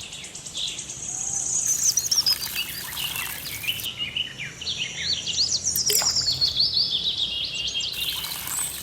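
Several small birds chirping and twittering, many short rising and falling calls, with a high hiss that comes in for a couple of seconds and returns near the end.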